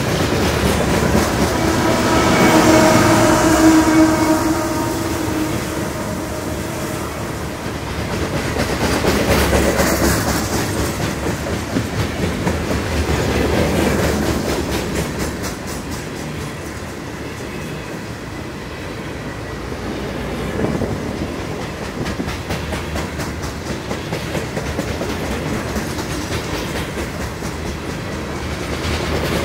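Coal hopper cars of a freight train rolling past with a steady rumble and regular clicking of wheels over the rail joints. A few seconds in, a mid-train diesel locomotive passes, the loudest part, adding a hum of several steady tones.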